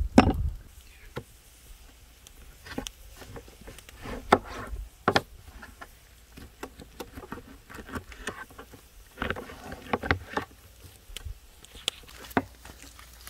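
A last heavy chopping stroke right at the start, then scattered light knocks, clicks and short rustles of hands working.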